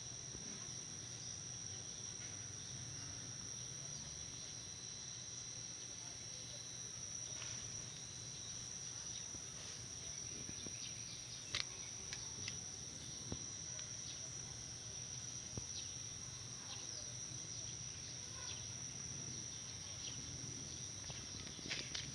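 Insects trilling steadily in one continuous high-pitched tone, with a few faint clicks scattered through it.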